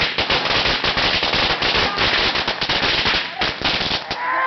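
A long string of firecrackers, about 400, going off in a rapid continuous run of sharp bangs that thins to a few last pops and stops about four seconds in.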